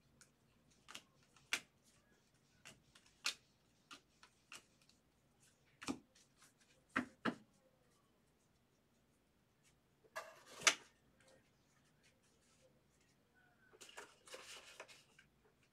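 Baseball cards being handled and sorted: scattered light clicks and taps, a sharper louder one about ten seconds in, and a short rustle near the end.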